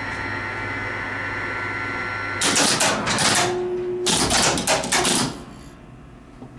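Geared traction machine of a 1954 Otis elevator running with a steady hum, then stopping about two and a half seconds in. Its stop brings nearly three seconds of loud, rapid mechanical clattering from the brake and the relay controller.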